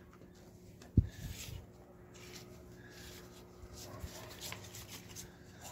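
A sharp knock about a second in, followed by a few lighter knocks and the clicking and rubbing of small parts being handled, over a faint steady hum.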